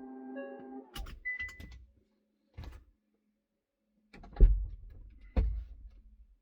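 Boot of a 2025 Hyundai Ioniq 5 with its liftgate mechanism: a brief steady hum for about a second, then several sharp clicks and a short high squeak, then two heavy thumps about a second apart, the first the loudest.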